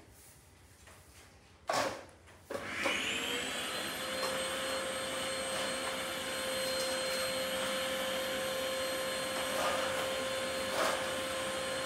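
A thump, then a vacuum cleaner switched on about two and a half seconds in: its motor whines up to speed and settles into steady running as the wand is worked over a tiled floor.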